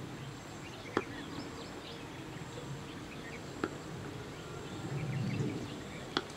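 Small birds chirping in quick short calls over a steady outdoor background, with three sharp knocks: about a second in, midway, and near the end.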